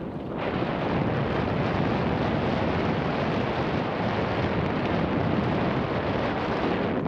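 Steady wind rushing over the microphone of a bicycle-mounted camera riding a gravel track, mixed with the rumble of tyres on gravel. The higher hiss dips briefly right at the start, then holds steady.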